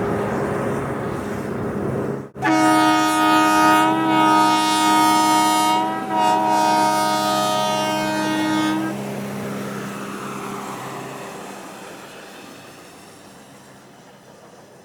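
Train horn sounding a chord of several notes in two long blasts, the first about three and a half seconds, the second after a brief break, then the train's rumble fading away. Before it, a steady rumble cuts off suddenly about two seconds in.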